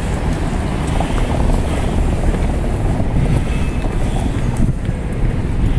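Steady low rumble of city street and traffic noise.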